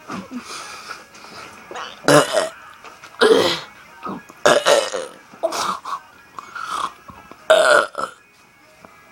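A man belching over and over: about six loud burps of varying length, roughly a second apart, with a few smaller ones in between.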